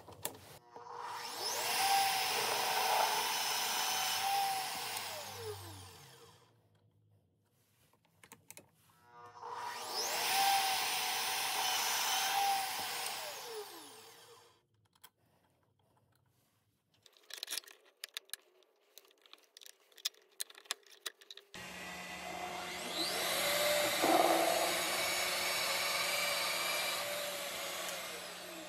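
Drill press drilling into an aluminium extrusion three times, the motor winding up at the start of each run and winding down at the end. Scattered clicks and knocks come between the second and third runs.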